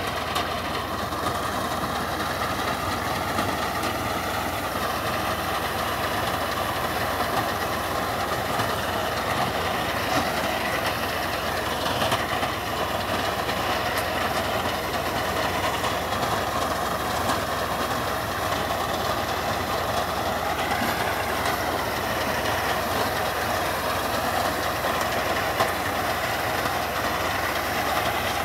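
Tractor diesel engine running steadily under load, together with the mounted reaper's cutter bar working through standing paddy (rice).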